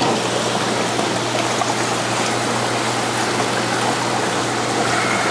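Water running and splashing in an aquarium, a steady rushing with a low steady hum beneath it.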